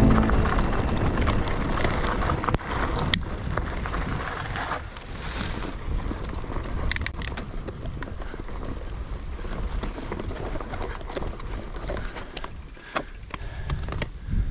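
Wind rushing over the microphone of a bike-mounted action camera, mixed with tyre noise and scattered clicks and rattles from a mountain bike riding a trail.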